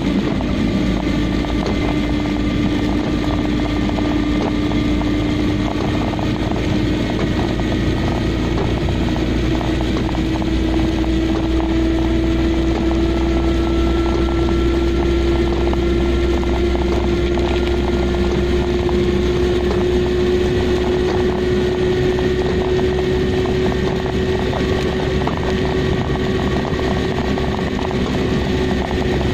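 Car engine and road noise heard from inside the cabin while driving on a wet road: a steady low rumble with the engine's hum climbing slowly in pitch as the car gathers speed, over the hiss of tyres on wet tarmac.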